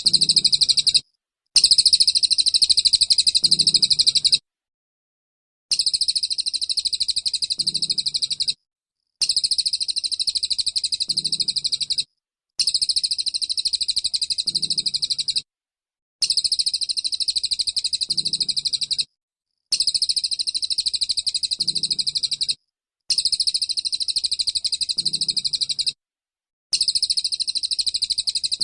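Small songbird's rapid-fire 'tembakan' song: dense bursts of very fast, high-pitched chattering notes, each lasting about three seconds and cut off cleanly, repeating about every three and a half seconds with a second of silence between.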